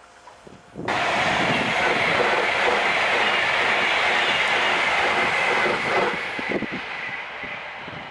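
Class 390 Pendolino electric train passing at speed close by: loud rushing wheel and air noise with a steady high whine. It starts suddenly about a second in and eases off after about six seconds.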